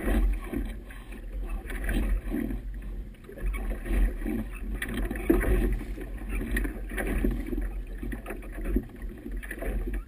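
Wind buffeting the camera microphone with a constant low rumble, while choppy river water splashes and slaps against a boat's hull in irregular surges.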